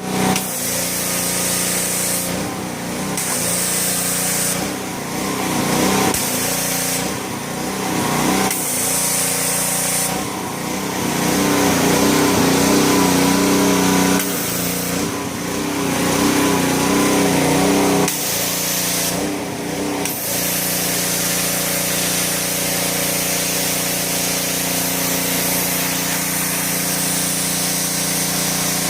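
Pressure washer running: a steady motor hum under the hiss of the spray jet. The spray cuts out briefly about seven times in the first twenty seconds, with the motor note shifting each time, then sprays without a break.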